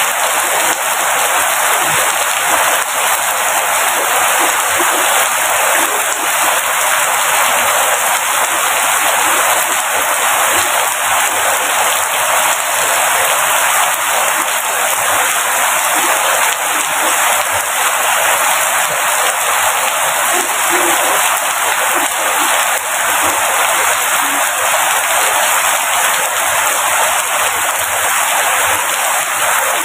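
Rain falling steadily, a dense, even hiss of drops that does not let up.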